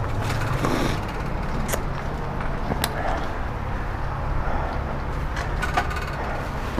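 A bicycle being wheeled by hand along a pavement, giving a few scattered clicks and knocks over a steady low rumble.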